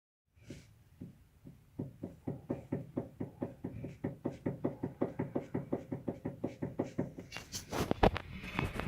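Steering tie rods on a Toyota Corolla knocking in a fast, even rhythm, about five knocks a second, with a louder clatter near the end. The knock is play in CTR-brand tie rods that were fitted less than a year earlier.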